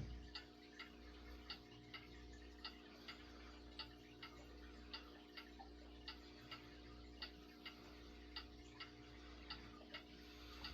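Near silence as a 1970s Galaxy Turbo Stream 20-inch box fan coasts down after being switched off: a faint steady hum with faint, even ticks about twice a second.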